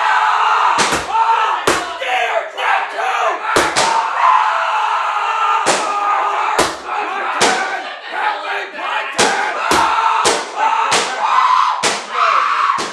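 Several voices yelling together, crossed by sharp bangs or knocks at uneven gaps of about a second.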